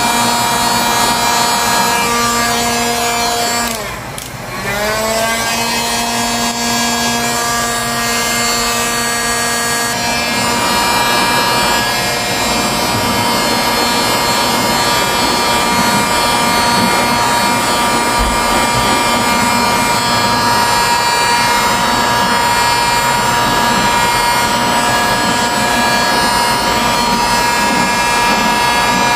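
Handheld electric heat gun running steadily, its fan motor giving a constant whine over the rush of blown air. About four seconds in, the motor briefly winds down and spins back up to speed.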